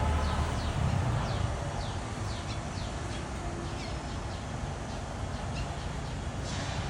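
Parrots calling: a steady run of short, quick chirps that each fall in pitch, several a second, over a steady low rumble.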